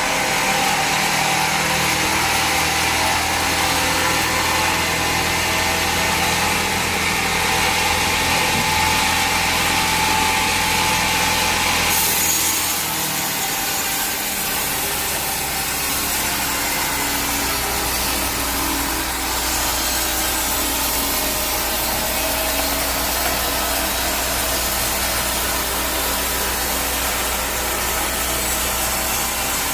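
Sawmill saw running and cutting through a log, a steady loud rasping whine; about twelve seconds in the sound changes, the high hiss easing and a low steady engine hum coming forward.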